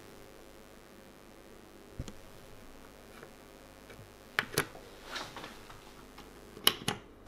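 Short sharp clicks from a chrome push-on wall dimmer switch being pressed and turned: a pair about four and a half seconds in and a louder pair near the end, with a fainter click about two seconds in.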